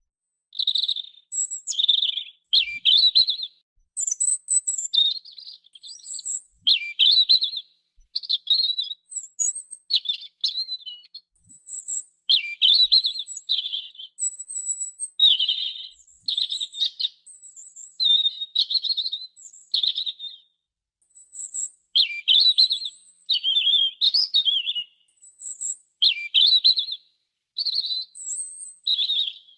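A robin singing: a long run of short, high, warbling phrases, roughly one a second, with brief pauses between them and thin higher notes mixed in.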